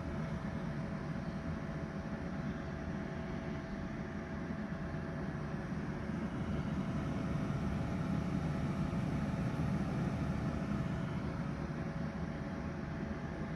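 Philips Essential XL air fryer running while it cooks: its fan blows with a steady whir and a faint constant whine, at the loudness it normally runs at.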